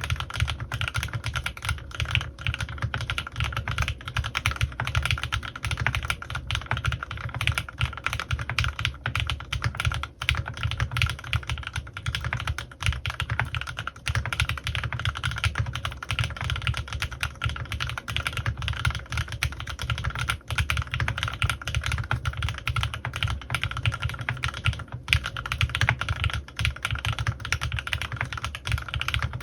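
Fast, continuous typing on a CannonKeys Rekt1800 custom mechanical keyboard with lubed Gateron Milky Yellow linear switches and PBTfans Resonance PBT keycaps: a dense, unbroken stream of key clicks with a deep low end.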